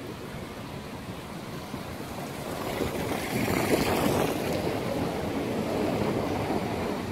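Wind rushing over a smartphone microphone while cycling, mixed with tyre noise on the path; it swells about three seconds in and stays strong.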